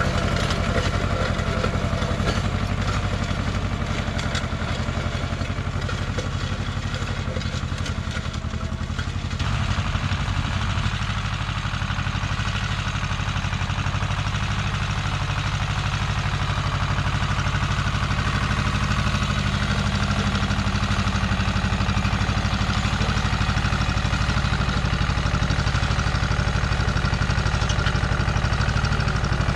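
Goldoni 933 RS DT compact tractor's engine running steadily under load as it pulls a vineyard disc harrow through grassy soil. Its note shifts about ten seconds in.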